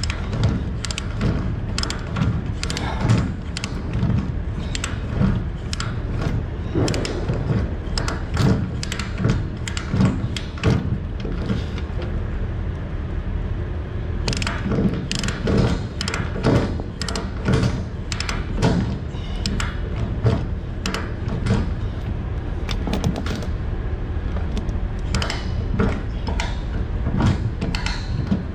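Ratchet-type chain load binder being cranked to tighten a flatbed's tie-down chain: the pawl clicks in quick runs, with a pause of a couple of seconds near the middle.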